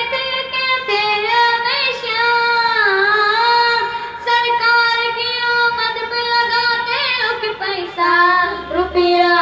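A young boy singing a naat, an Urdu devotional song in praise of the Prophet, solo and unaccompanied. He holds long, wavering notes and breaks into shorter phrases near the end.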